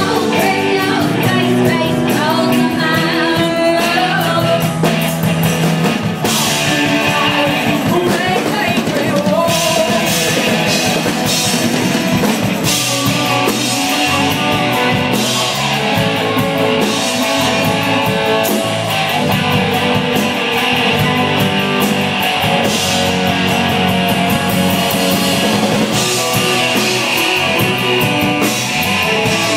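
Rock band playing live: guitar and drum kit, with a singer's voice in places.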